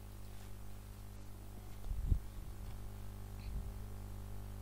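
Steady low electrical hum, with a soft low thump about two seconds in and a fainter one a moment later.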